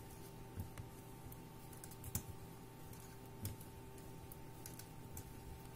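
Knitting needles clicking faintly and irregularly as stitches are purled, over a steady low hum.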